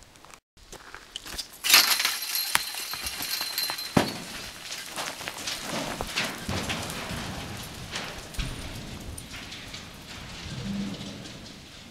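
Rock thrown into a deep vertical mine shaft: a sudden crash a couple of seconds in with a brief high ring, then a long pattering clatter of rock and gravel falling down the shaft that slowly fades away.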